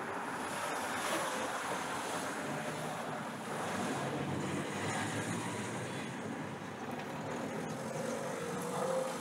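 Steady outdoor background noise: an even rush of wind, with no speech.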